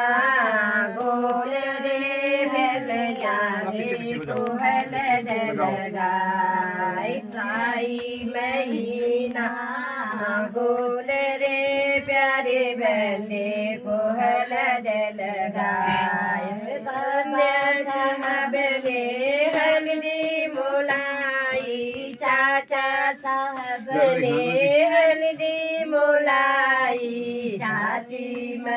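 Women singing together, holding long notes in a slowly moving melody, with no breaks for speech.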